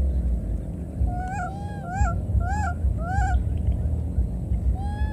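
Infant macaque giving short, arched, high coo calls: four in quick succession, then one more near the end. A steady low rumble runs underneath.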